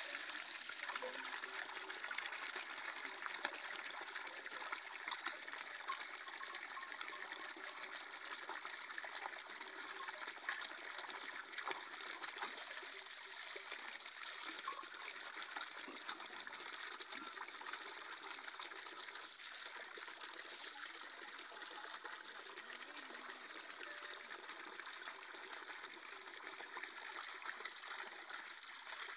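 Water running into a watering trough: a steady trickling and splashing.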